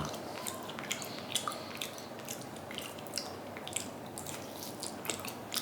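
A person chewing food close to the microphone: wet, irregular clicks and squishes from the mouth.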